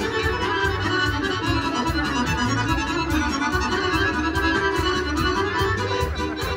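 Accordion-led Serbian folk music with a steady quick beat and a pulsing bass line.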